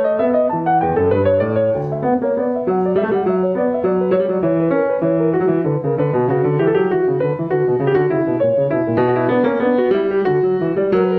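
Yamaha Disklavier acoustic piano playing a score on its own, its keys driven by actuators under the control of a computer program that renders the music expressively. A continuous stream of notes, with a melody over lower bass notes.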